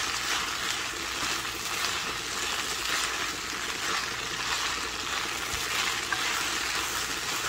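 Spaghetti with onion and sweet peppers sizzling steadily in butter in a frying pan while it is stirred with a plastic spoon.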